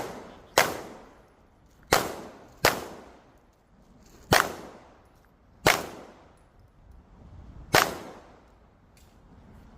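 Pistol firing six shots at an uneven pace, about one to two seconds apart, each followed by a short echoing tail.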